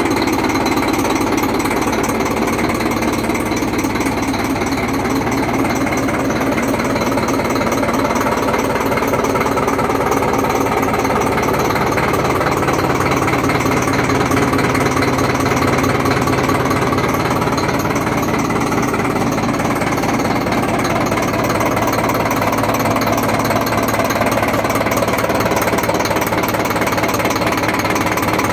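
1960 Dutra D4K-A tractor's 5.5-litre four-cylinder diesel engine idling steadily with an even, rapid knock.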